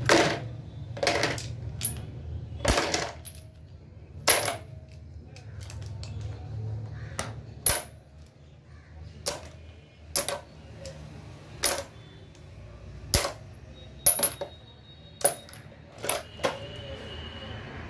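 Steel sockets and short pipe pieces clinking and knocking together on a concrete floor as they are picked through by hand. About fifteen sharp metallic clinks come at uneven intervals, some ringing briefly.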